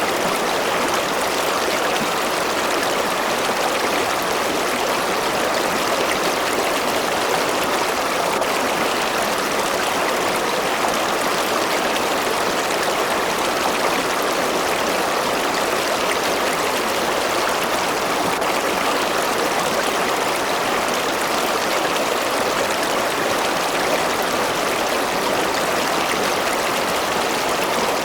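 River water running over rocks, a steady rushing and babbling that does not change.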